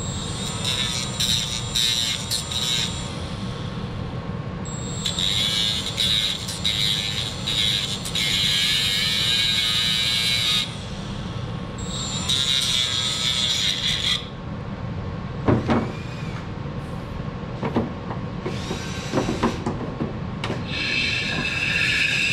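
Small cordless rotary tool with a thin cutoff wheel grinding plastic, whining high in several bursts of a few seconds each. It is widening slots in a plastic door part so the part fits over a thicker fiberglass door. Between the later bursts come a few knocks as the part is handled.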